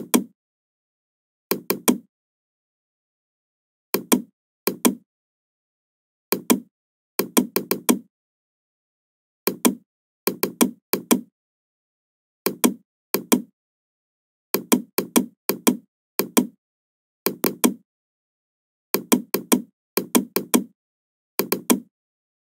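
Computer mouse and keyboard clicks in short quick clusters of two to five, recurring every second or two with dead silence between.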